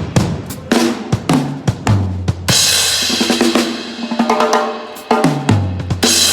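Acoustic drum kit played in a sound check: sharp snare and kick strokes, and drums struck in turn from higher to lower pitch as in a tom fill. Cymbal crashes ring out about two and a half seconds in and again near the end.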